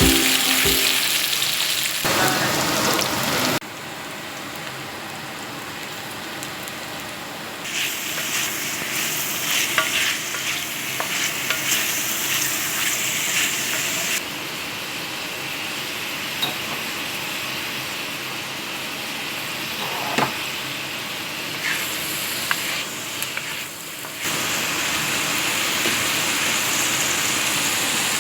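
Food sizzling as it fries in a pan, with a few clinks and scrapes of stirring. The sizzle jumps up and down in loudness abruptly several times.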